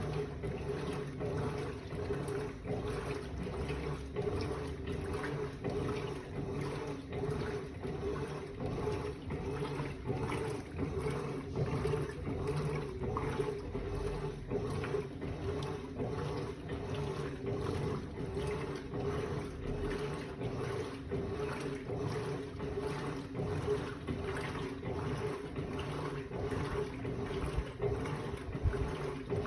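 Electrolux LBU15 15 kg top-loading washing machine running a wash cycle: a steady motor hum with a regular, rhythmic swish of water and clothes being churned.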